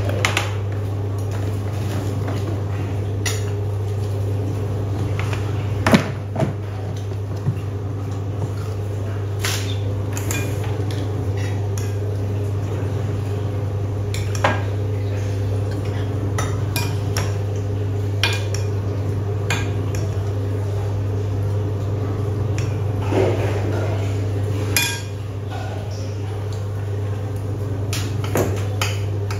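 Spoons clinking and scraping on ceramic plates as people eat, in scattered single clinks every second or two. A steady low hum runs underneath and drops a little near the end.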